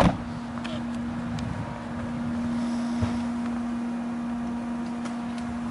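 A car door shuts with a single thud, then the 1998 Toyota Aristo's 2JZ-GTE twin-turbo straight-six idles with a steady hum.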